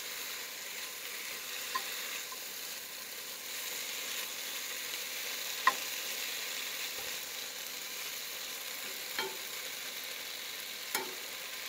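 Food sizzling as it fries in a pan on a camp stove, a steady hiss, with four sharp clinks of a utensil against the pan as it is stirred, the loudest about halfway through.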